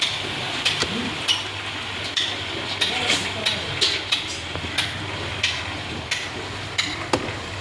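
Concrete work: irregular scraping and knocking of hand tools, roughly two a second, over the steady hum of a running engine.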